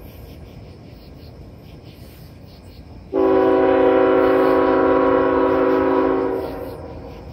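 Diesel freight locomotive's multi-chime air horn giving one long blast of about three seconds, starting sharply about three seconds in and fading out near the end. It is one of a series of blasts warning of the train's approach to the grade crossing.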